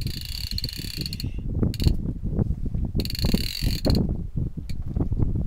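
Spinning fishing reel whirring in two bursts, the first about a second and a half long and the second about a second, while a hooked fish is played on the line. A low rumble runs underneath.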